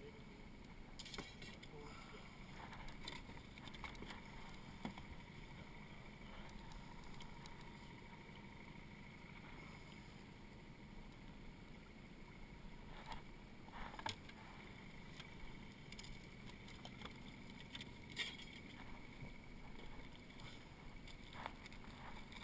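Faint, steady low rumble of a small fishing boat on the water, with a thin steady high whine and scattered light knocks and clicks from gear against the hull.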